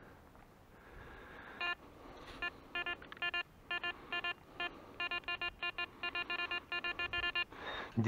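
Metal detector sounding a run of short, uneven electronic beeps, its target signal, starting about a second and a half in and stopping just before the end.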